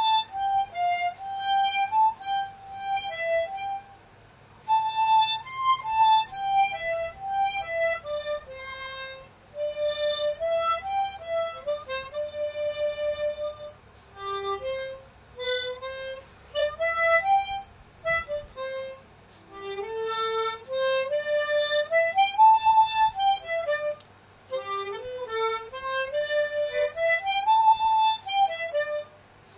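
Harmonica playing a soft, gentle melody solo, one note at a time, in phrases of a few seconds with short breaks between them.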